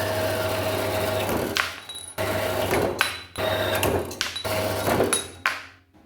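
Electric welding on steel: the arc buzzes and crackles over a steady hum in about five short welds, each stopping abruptly with brief pauses between them.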